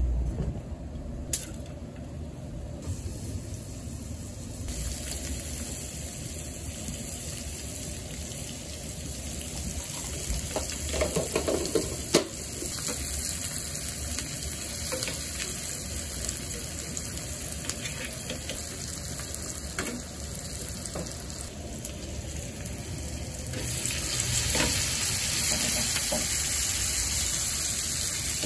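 Butter, sliced sucuk and green peppers sizzling in a small aluminium frying pan on a gas burner, with a few sharp clicks of a fork against the pan. The sizzle gets louder about five seconds in and again near the end.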